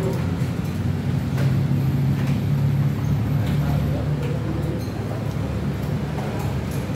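Roadside traffic: a steady low engine hum with faint voices and a few light clicks.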